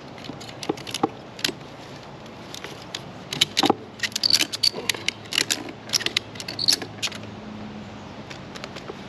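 Ratchet tie-down strap being cranked tight: a string of irregular metallic clicks and clacks from the ratchet mechanism, thickest in the middle.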